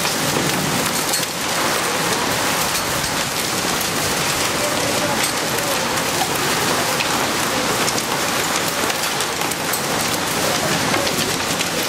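Heavy rain mixed with small hail falling on concrete and gravel: a steady downpour with many sharp ticks of hailstones striking.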